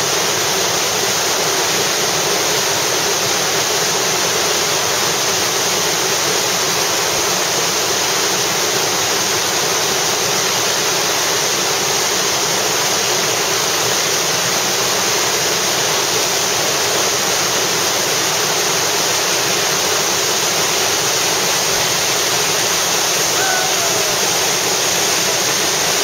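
Whitewater rapid on the Snake River: a loud, steady rush of churning water that does not change.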